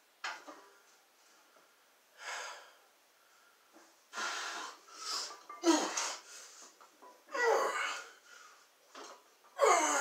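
A weightlifter's forceful breaths, sharp noisy inhales and exhales every second or two, growing louder as he braces to unrack and press a 155 lb barbell overhead.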